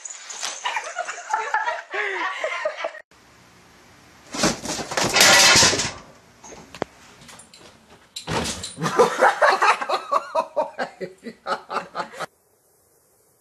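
A person laughing hard in quick repeated bursts for about four seconds in the second half, after a loud burst of noise lasting about a second and a half, then it cuts off suddenly.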